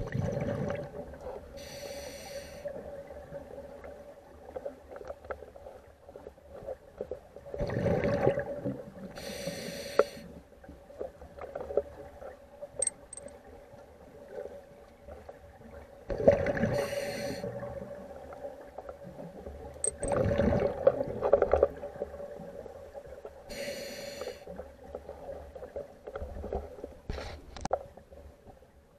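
Abstract soundscape: a steady hum under slow swells of rushing noise, with hissing bursts every several seconds.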